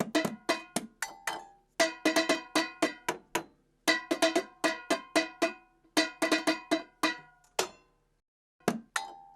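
A short tune of struck, bell-like percussion notes in quick rhythmic runs, each note sharp and ringing briefly before it fades, with a pause before two last strikes near the end.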